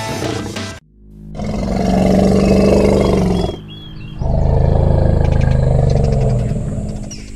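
Two long, loud animal roars of a couple of seconds each, with a short gap between them, after background music breaks off abruptly about a second in.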